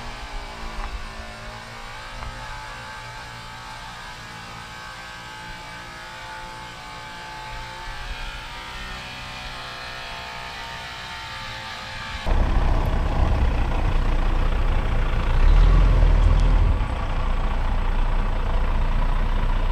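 A truck engine running with a steady hum, its pitch drifting slowly lower. About twelve seconds in, the sound changes abruptly to a much louder, deep rumble.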